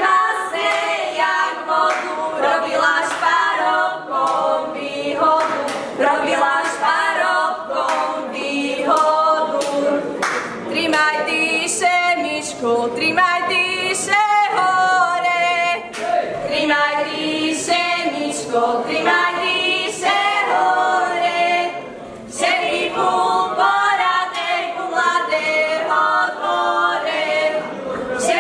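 Young women's folk group singing a Slovak folk song a cappella, several voices together.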